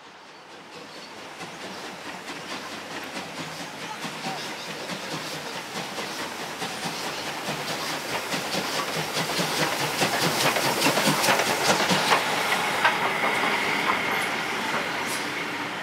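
Victorian Railways D3 class 4-6-0 steam locomotive D3 639 hauling a train, its exhaust chuffs growing steadily louder as it nears and passes, peaking about two-thirds of the way through. The carriage wheels then click over the rail joints as the train runs by.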